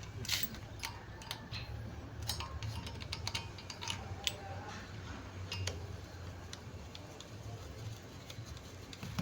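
Scattered light metallic clicks and clinks of tools and alternator parts being handled during reassembly, more frequent in the first half, over a low steady hum.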